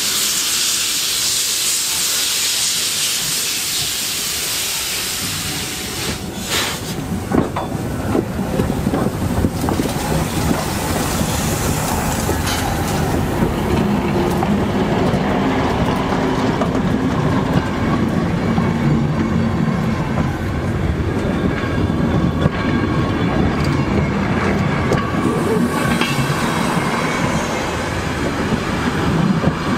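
Loud steam hiss for the first five seconds or so, then a train rolling along the track with a steady low rumble and scattered clanks from the wheels and rail joints.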